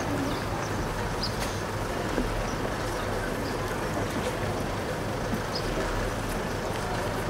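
Steady outdoor background: a low, even mechanical hum under a constant rush of noise, with a few faint, short high chirps scattered through it.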